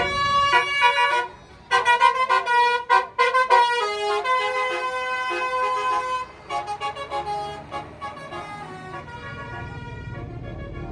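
Tour bus's basuri telolet horn playing a quick melody of stepped multi-tone notes, breaking off briefly about a second in, then continuing in fainter, sparser notes that die away near the end.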